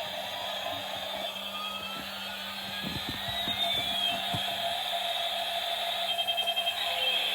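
Electronic alarm tones layered over one another: slow siren-like sweeps rising and falling in pitch over a steady hum, with a short burst of rapid beeping near the end.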